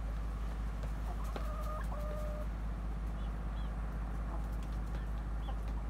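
Chickens clucking, with two short drawn-out calls about a second and a half in, over a steady low rumble.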